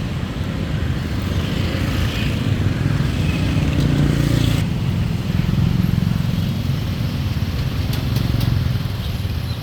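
A motor vehicle engine running steadily, with a change in its sound about four and a half seconds in.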